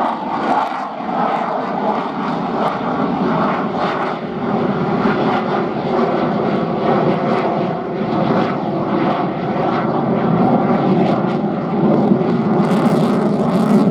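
Jet noise from a Boeing F-15QA's twin General Electric F110 turbofan engines as the fighter flies its display, steady and loud, growing a little louder and harsher near the end.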